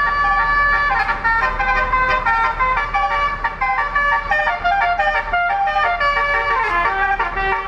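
A bus's 'telolet' multi-tone horn playing a fast melody of short, stepped notes, over a steady low rumble.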